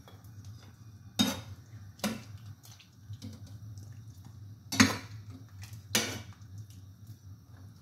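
Metal slotted ladle clinking against a steel pot, four sharp knocks as boiled chicken pieces are lifted out of the broth onto a plate, with broth dripping. A low steady hum runs underneath.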